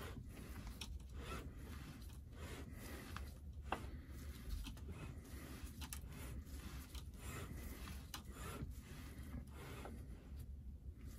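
Faint, irregular rubbing and scuffing of a cloth rag wiped by a gloved hand over the cast-iron engine block, with a few small clicks, over a low steady hum.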